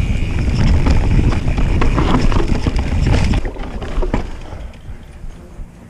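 Mountain bike descending a rooty dirt trail at speed: heavy wind rush on the microphone with the bike rattling and knocking over bumps. About three and a half seconds in it drops suddenly to a much quieter rolling over rock with scattered clicks.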